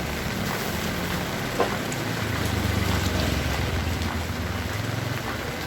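Heavy rain falling steadily, with scattered ticks of drops close by. A low engine hum builds about two seconds in and fades near the end, as a motor vehicle passes.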